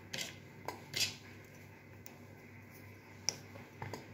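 Hard chocolate being snapped by hand and the pieces dropping into a mixer jar: a few scattered small clicks and snaps, the sharpest about a second in and a little after three seconds.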